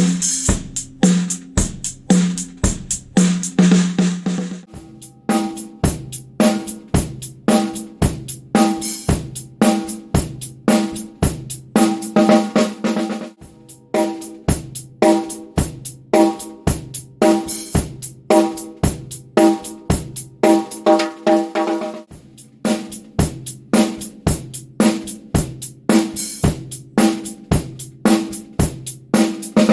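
Drum kit played in a steady groove, the snare a Tama Warlord Valkyrie, with bass drum, hi-hat and cymbals. A cymbal wash rings over the first few seconds, and the drums' pitched ring carries on between hits after that.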